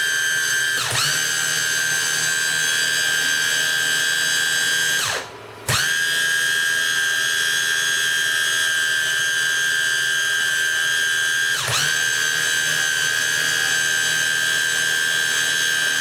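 Electric motors of two linear actuators running together with a steady high whine. The whine cuts out for about half a second some five seconds in, then starts again. Its pitch dips briefly twice, about a second in and near twelve seconds.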